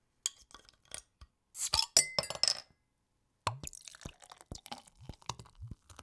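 Glass clinking: a run of sharp clinks, densest and loudest about two seconds in, then after a short silence a second, lighter run of clinks.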